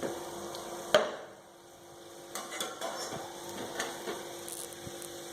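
A spoon clinking and scraping against a pan while stirring cashews frying in ghee, with one sharp clink about a second in and lighter scrapes after it.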